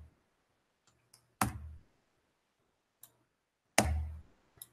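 A few separate clicks from a computer mouse and keyboard, spaced a second or more apart, as tolerance values are entered in a software dialog.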